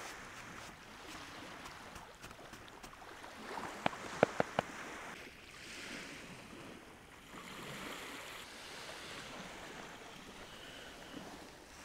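Lake Baikal waves washing in slow swells. Four sharp clicks come in quick succession about four seconds in.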